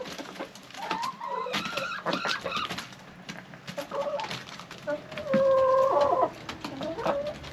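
A flock of hens clucking and calling while feeding, with a longer drawn-out call a little past the middle as the loudest sound, and light taps of beaks pecking at the feeder.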